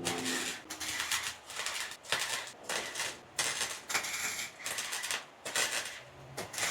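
Welding arc crackling in a quick series of short bursts, about two a second: tack or stitch welds laying fresh sheet-metal patch panels into a rusted car body.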